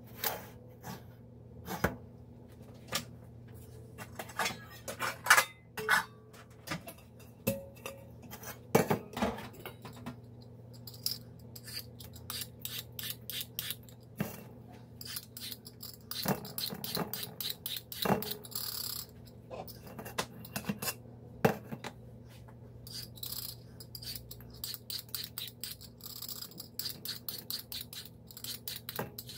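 Kitchen utensils, dishes and pots knocking and clinking irregularly as food is prepared, some strikes ringing briefly, over a steady low hum; the sound is played at double speed.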